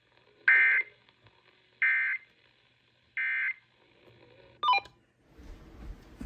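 EAS SAME digital end-of-message tones: three short data bursts, each about a third of a second and about 1.3 seconds apart, marking the end of the alert. A brief falling chirp follows near the end, then a hiss of radio noise.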